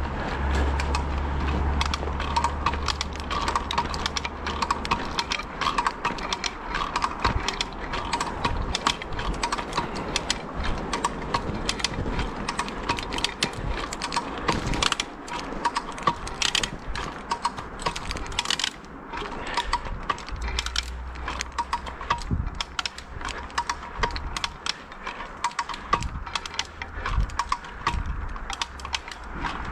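Rope block and tackle being hauled tight by hand to pull a tree over: a continuous run of clicking and rattling from the rope and pulleys, with heavy, laboured breathing from the worker. A low rumble comes and goes under it.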